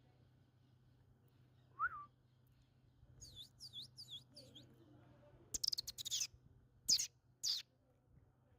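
Indian ringneck parakeets calling: one short call, then a quick run of five high falling chirps, then loud shrill screeches in the second half.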